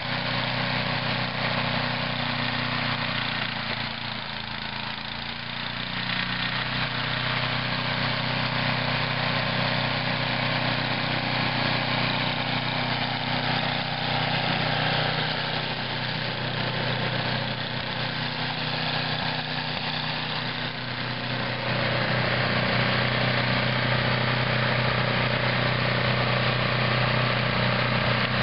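Toro snow thrower engine running steadily, dipping briefly about four seconds in and getting a little louder about 22 seconds in.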